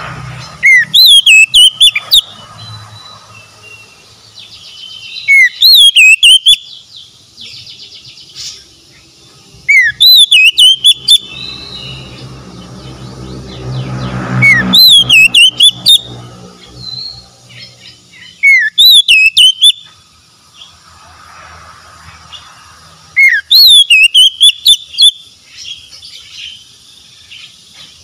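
Oriental magpie-robin singing loud, repeated song phrases, six in all, about one every four to five seconds. Each phrase opens with a rising whistle and breaks into quick, very high looping notes.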